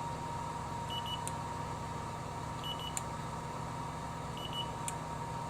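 Short, high electronic beeps repeating about every two seconds over a steady low electrical hum, with a few faint ticks in between.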